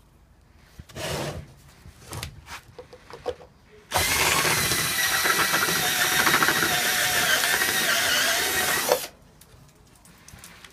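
Cordless drill with a large step drill (unibit) opening up a hole through the aluminium sheet clamped in a wooden jig: a few handling knocks first, then about five seconds of steady drilling that stops abruptly.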